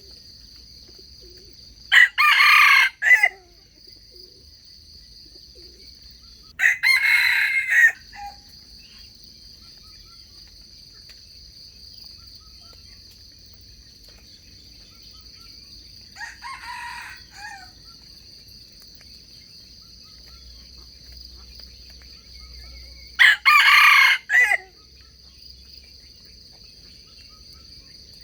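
Wild junglefowl roosters crowing: four short crows, the third fainter than the rest, over a steady high-pitched drone.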